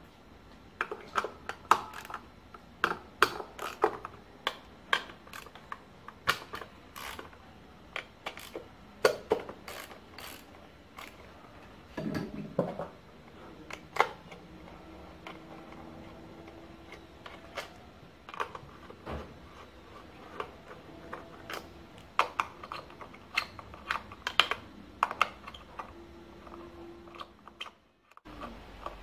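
Hand socket wrench and steel bolts clicking and clinking against the aluminium intake plenum as bolts are worked loose by hand, in irregular sharp clicks, one to a few a second.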